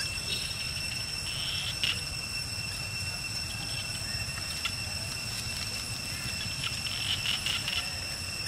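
Steady high-pitched insect drone over a low rumble, with brief rustles of dry leaves under a foraging monkey's feet about one and a half seconds in and again around seven seconds.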